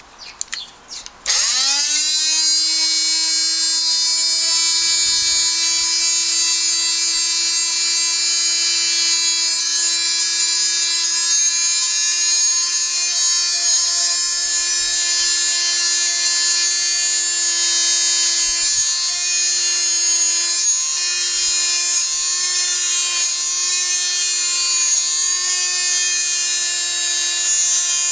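Ferrex oscillating multi-tool switched on about a second in, spinning up quickly and then running with a steady high buzz as its scraper blade works paint off a surface. The pitch wavers slightly in the second half as the blade is pressed and eased.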